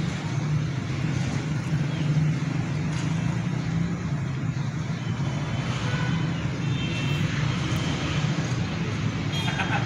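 Steady low rumble of road traffic or a running vehicle engine.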